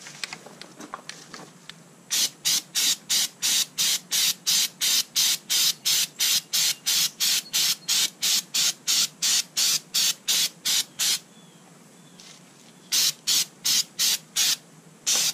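Aerosol spray can of black coating sprayed in short hissing bursts, about three a second; the bursts stop for about two seconds, then half a dozen more follow.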